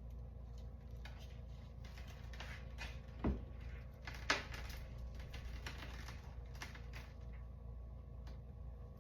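Scattered light clicks and taps from handling the shot-tested ceramic armor plate, with two sharper knocks a second apart partway through, over a steady low hum.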